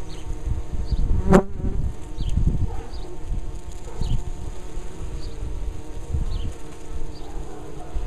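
Honey bees buzzing steadily at a busy hive entrance, with one louder buzz and a sharp tick about a second in.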